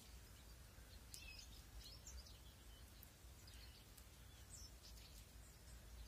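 Near silence with a few faint, short, high-pitched bird chirps scattered through.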